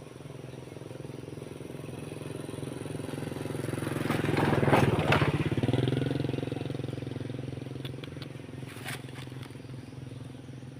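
A motor vehicle passing by: its engine sound swells, is loudest about five seconds in, then fades away.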